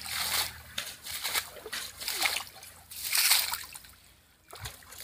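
Shallow muddy water splashing and sloshing in about four bursts, the loudest a little past the middle, from water being scooped and thrown with a metal bowl and draining through a lifted bamboo-framed fishing net. It dies down near the end.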